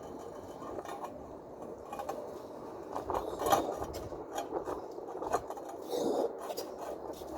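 Irregular scraping and clinking of hand tools on tile, with short sharp clicks scattered through.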